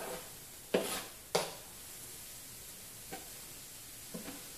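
Chopped cremini mushrooms and garlic sizzling as they are scraped off a cutting board into a hot frying pan of cooking onions. Two sharp knocks come about a second in and two fainter taps later, as the board and utensil are knocked against the pan.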